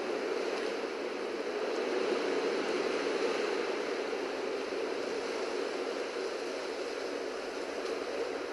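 Ocean surf washing steadily against rocks.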